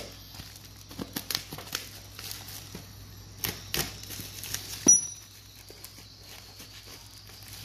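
Bubble-wrap shipping mailer and plastic packaging being handled and torn open: scattered crinkles, rustles and small clicks, with one sharper click about five seconds in.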